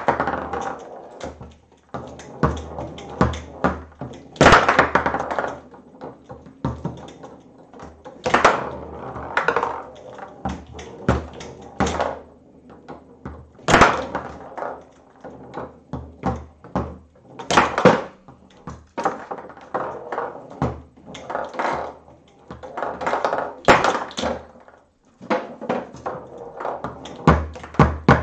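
Foosball table in play: quick, irregular clicks and knocks as the ball is struck and passed between the plastic men and the rods knock about. A louder knock that rings briefly comes every four to five seconds.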